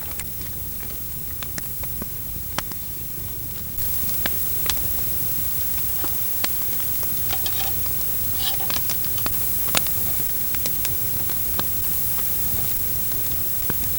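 Campfire crackling: scattered sharp pops and snaps over a steady hiss, the hiss stepping up a little about four seconds in.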